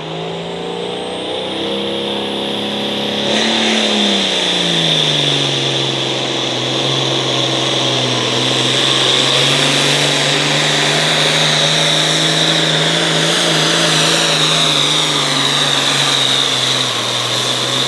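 Turbocharged diesel engine of an International Harvester pulling tractor at full throttle under load, dragging the weight-transfer sled. The engine note climbs for the first few seconds, drops about four seconds in, then holds steady under a loud, steady high whine.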